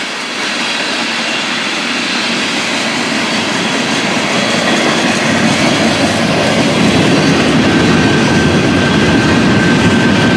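Fast-moving freight train passing, a steady rumble of rolling railcars that grows slowly louder.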